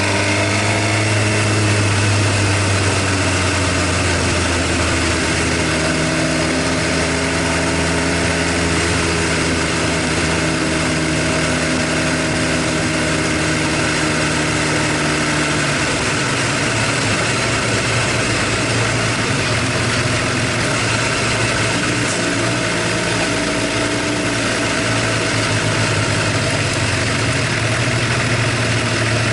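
Suzuki GSX-R750 L2 inline-four engine idling, with an abnormal valve-train tapping (tappet noise) that the owner says grows louder until the engine is fully warm. He suspects wear after 53,000 km including circuit riding, and thinks an engine overhaul may be due. The idle note shifts slightly about halfway through.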